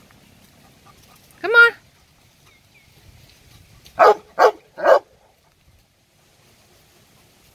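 A dog barks three times in quick succession about four seconds in, after a single short rising yelp about a second and a half in.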